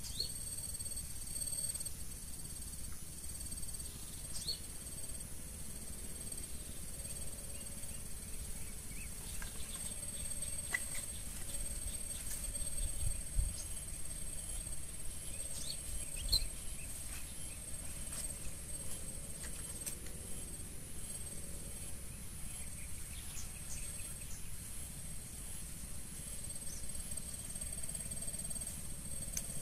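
Steady high-pitched insect drone with a faint pulsing, over a low rumble, with a couple of soft thumps about halfway through.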